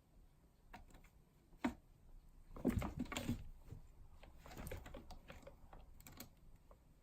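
Cats scuffling: irregular light taps and rustling, with a sharp click about a second and a half in and louder bouts of scuffling around three seconds and again near five.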